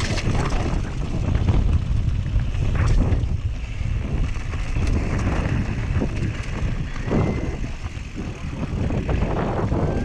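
Whyte G-170 mountain bike riding down a dirt and gravel trail, heard from a bike-mounted action camera: heavy wind buffeting on the microphone over tyre rumble and the clatter of the bike over stones, with a brief high squeal about seven seconds in.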